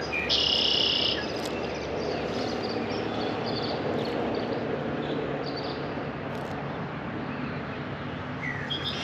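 Lakeside wildlife calls: a loud, buzzy high trill lasting under a second near the start, then scattered short high chirps over a steady low background noise.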